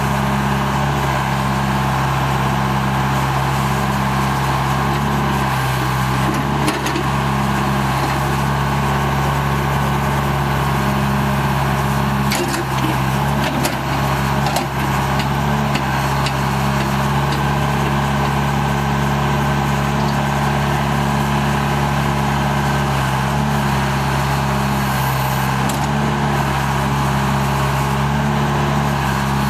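The four-cylinder John Deere 4045 diesel engine of a 2002 John Deere 310G backhoe running at a steady speed, with a few short knocks about a third of the way in and around the middle.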